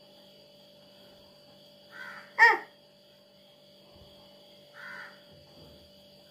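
A crow cawing: a faint call, then one loud, short caw about two and a half seconds in, and another fainter caw near five seconds.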